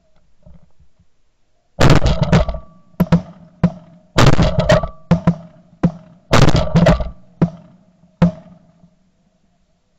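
A rapid volley of shotgun blasts, more than a dozen shots in clusters from about two seconds in to about eight seconds in, too many and too close together for one gun: several hunters firing at once on a flock of snow geese passing overhead.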